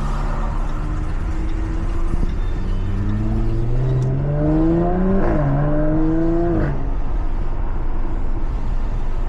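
Jaguar F-Type S engine and exhaust accelerating in Sport mode with the exhaust valve open. The revs climb for about two seconds, drop sharply at an upshift about five seconds in, climb again, then fall away as the throttle is lifted. A steady rush of road and wind noise runs underneath.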